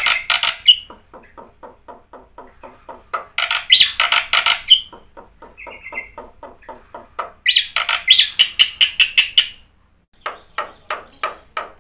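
Black-winged myna (jalak putih) singing vigorously: loud, harsh squawking phrases about every four seconds, three in all, separated by fast runs of short rhythmic notes.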